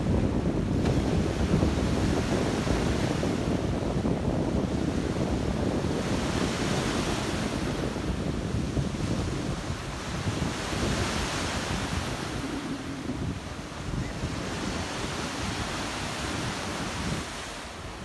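Sea surf breaking on a sandy beach, small waves washing in with a swell of hiss every few seconds, over a steady rumble of wind on the microphone.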